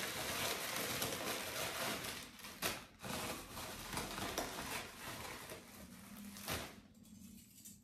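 Plastic courier mailer bag crinkling and rustling as it is torn open and a wrapped item is pulled out, with a sharp snap of packaging a little before three seconds in and another near the end. The rustling thins out over the last few seconds.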